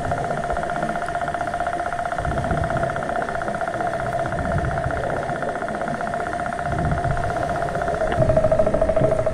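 A steady, engine-like droning hum with a pitched whine and its overtones, heard underwater over a low, uneven rumble. The hum's pitch drops slightly about eight seconds in.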